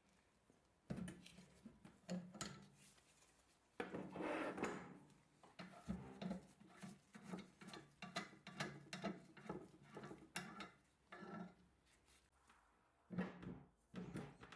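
Metal parts of an antique can-sealing machine clicking, knocking and scraping against each other as they are handled and fitted together: light, irregular knocks, with a steadier run of about two knocks a second through the middle.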